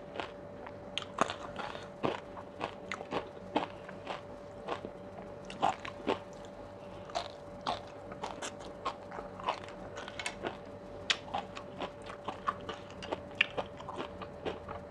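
Close-miked chewing of sea grapes: many small, sharp pops and crunches, a few each second, irregularly spaced.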